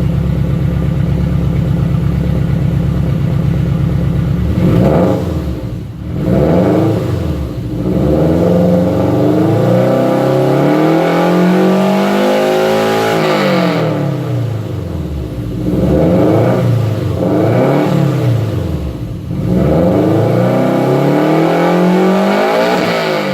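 2004 Subaru WRX STI's turbocharged flat-four engine idling, then being revved while stationary: several quick blips of the throttle and two longer climbs in revs that fall back each time.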